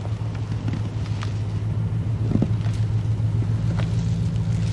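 Engine idling steadily with an even low hum, with a few faint ticks and knocks over it.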